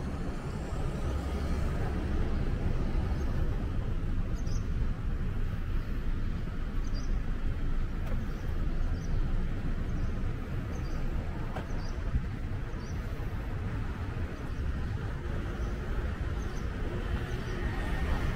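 City street traffic: a steady low rumble from passing cars and scooters, with scattered short high bird chirps.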